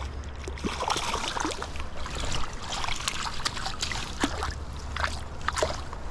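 River water trickling, with irregular small splashes from a small hooked trout being brought in at the surface.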